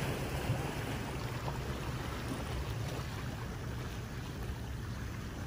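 Steady wash of sea waves on shoreline rocks, with wind rumbling on the microphone.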